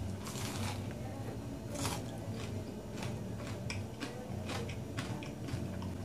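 A fried kibe with a crisp crust being bitten into and chewed, crunching in a run of irregular sharp cracks a few times a second; the loudest crunch comes about two seconds in.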